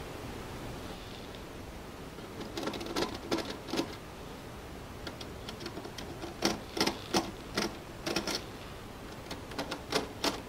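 Runs of small sharp clicks and ticks from the bracket screws of a ceiling-mount dome camera being turned tight by hand, in three bursts separated by pauses.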